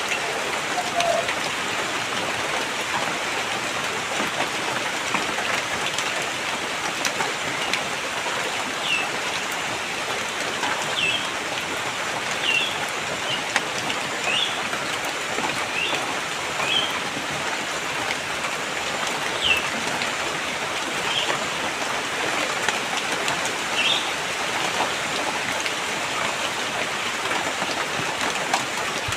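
Steady rain falling, an even hiss of drops. From about nine seconds in until a few seconds past twenty, short high chirps, like a bird calling, come every second or two over the rain.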